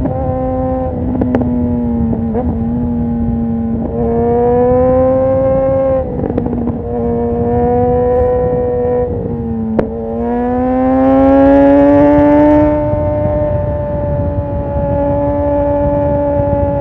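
Suzuki GSX-R 1000 L2's inline-four through a Yoshimura R11 full exhaust, ridden on the road: the engine climbs in revs, drops back, and climbs again several times. The longest, loudest pull comes about ten seconds in and holds high at the end. Three short sharp cracks cut in along the way, and wind rushes past underneath.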